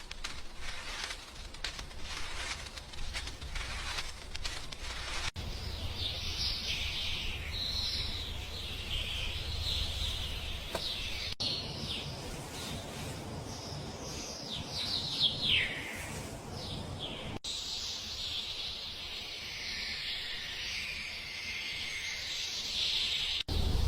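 Small birds chirping and twittering over a low background rumble, with a run of quick falling chirps midway; the sound changes abruptly at several edit cuts.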